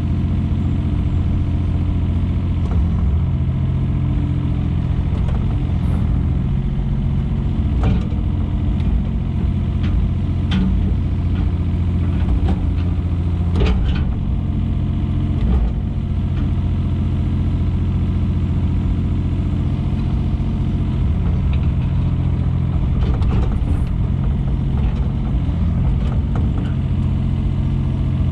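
Takeuchi TB125 mini excavator's diesel engine running steadily while it digs, with a few sharp knocks along the way, the loudest about halfway through.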